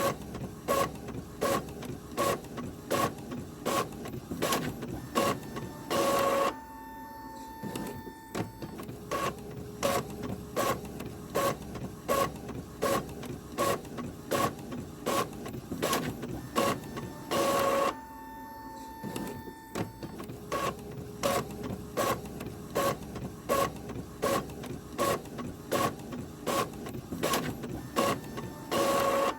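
Printer printing: an even run of mechanical clacks, two to three a second, broken three times by a louder half-second rush. Each rush is followed by a short lull with a faint steady whine before the clacking resumes.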